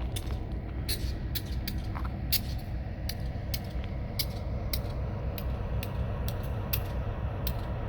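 Low, steady rumble of idling EMD GP-series diesel locomotives. Sharp, crisp clicks come about two or three times a second over the rumble.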